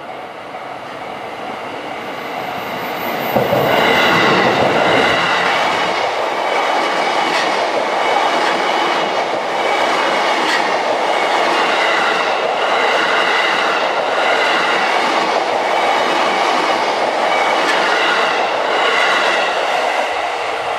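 JR East E233-series electric train passing close by. It grows louder over the first few seconds and jumps up sharply as it arrives about three seconds in. Then comes a steady run of wheel and rail noise with regular clacking over the rail joints, easing a little near the end.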